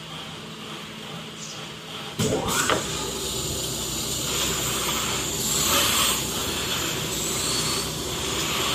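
CNC digital cutting machine for PVC starting up about two seconds in, with a sudden jump in level and a rising whine, then running with a steady whirring noise as its servo-driven gantry travels.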